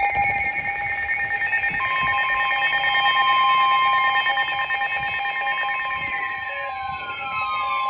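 NOAA Weather Radio alert for a high wind warning: a buzzy stretch of data tones, then a steady warning alarm tone starting about two seconds in, over other steady alarm tones. Several falling tones sweep down near the end.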